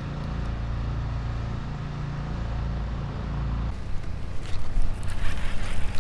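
Steady low hum of the fishing kayak's motor mixed with wind noise. About two-thirds of the way through it cuts to rough, gusty wind buffeting and handling noise.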